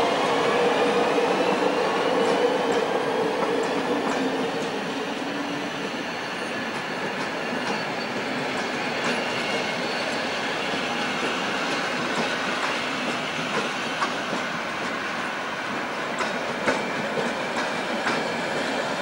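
Deutsche Reichsbahn passenger coaches rolling slowly past along the platform track: a steady rumble of wheels on rail. A thin wheel squeal rises slowly in pitch over the first few seconds, and a few sharp clicks come in the second half.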